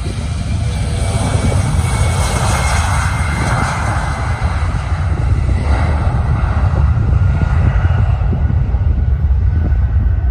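Jet airliner's engines rushing as it moves along the runway, swelling over the first few seconds and fading after about six seconds. A steady low rumble of wind on the microphone lies underneath.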